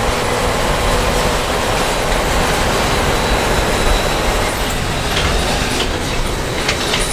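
Large tractor pulling a multi-row White planter through the field, running with a steady mechanical rumble, with a few short clicks near the end.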